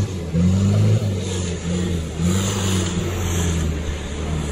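Off-road 4x4's engine revving in repeated surges, its pitch rising and falling about five times, as the vehicle works its way over rough ground.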